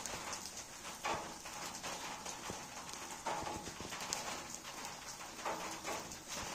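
Charcoal fire crackling under skewers of grilling meat, with irregular small pops and clicks over a steady hiss.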